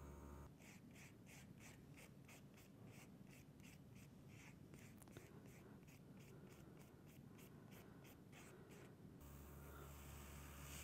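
Buffer block rubbed quickly back and forth over a gel-polished nail tip, a faint, even scrubbing at about three strokes a second that stops about nine seconds in.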